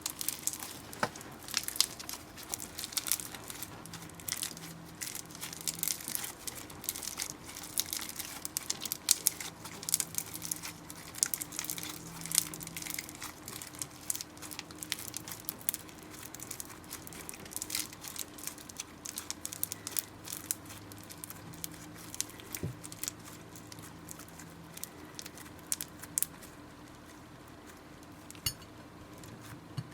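Hands squeezing and stretching slime: a dense run of small sticky clicks and crackles, thinning out in the last few seconds, over a faint steady hum.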